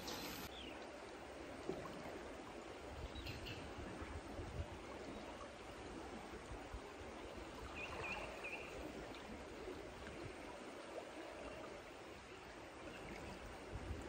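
Steady rush of a river running high and muddy after rain, with a faint low rumble underneath and a brief high chirp about eight seconds in.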